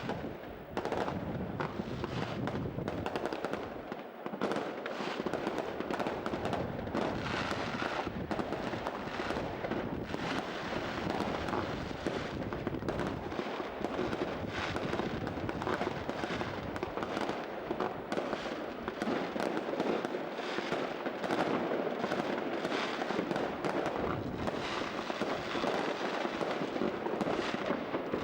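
Fireworks display: a dense, continuous run of bangs and crackling from aerial shells, several reports a second.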